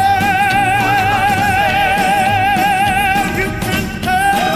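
Recorded music: an old-style rhythm-and-blues song, with one long wavering note held for about three seconds and a new note entering about four seconds in.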